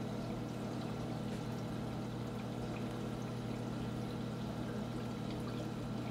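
Saltwater aquarium filtration running: water steadily pouring down from the overflow into the sump, over a steady low pump hum.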